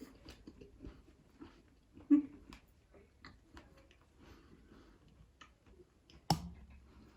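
A person chewing a mouthful of shortcake biscuit with cream and strawberry, with many small wet mouth clicks. There are two louder knocks, one about two seconds in and a sharper click near the end.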